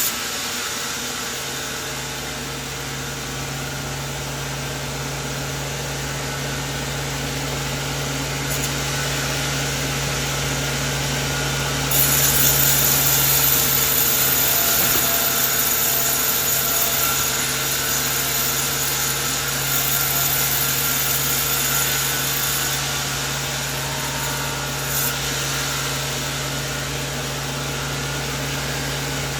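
Sawmill saw running steadily with its motor humming while cutting through coconut wood. The cutting gets louder and harsher about twelve seconds in and eases off again around twenty-three seconds.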